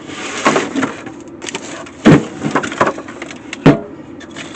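Several sharp knocks and clunks of a hard-cased object being handled and set down on a work surface, the loudest about two seconds in and near the end; most likely the Parmak 12-volt fence charger being moved about on the bench.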